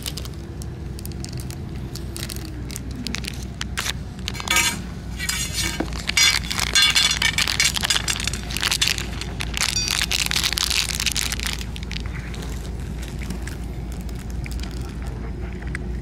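Crinkling and crackling of a plastic treat pouch being squeezed out over a steel dish, with clicks of food pieces dropping and cats chewing. The crackling is loudest in the middle.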